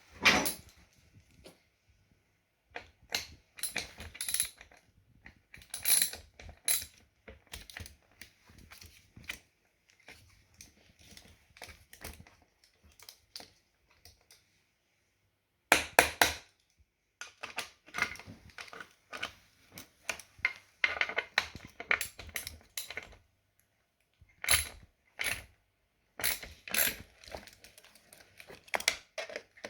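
Irregular metallic clinks, clicks and knocks of hand tools and small metal parts being handled, in scattered clusters with a short pause midway.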